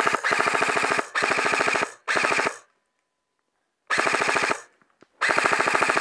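Airsoft rifle firing on full auto in five short bursts of rapid, evenly spaced shots. There is a pause of about a second between the third and fourth bursts.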